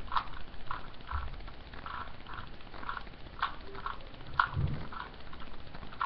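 Plastic 3x3 Rubik's cube being turned quickly through a move sequence: a run of short clicking turns, about two a second, with a few sharper clacks.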